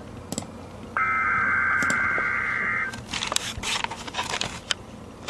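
NOAA Weather Radio SAME alert header: a loud, harsh, buzzing burst of digital data tones about a second in, lasting about two seconds, followed by a stretch of ragged crackling static.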